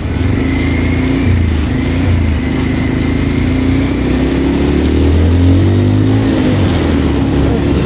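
A vehicle engine running in slow traffic, over steady road noise. Its pitch rises from about four to six seconds in as the vehicle speeds up.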